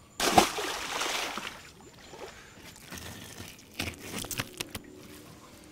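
A catfish carcass splashing into the pond: one sharp splash just after the start that dies away over about a second. Later, a few faint clicks and scrapes as a fillet knife slices through catfish meat.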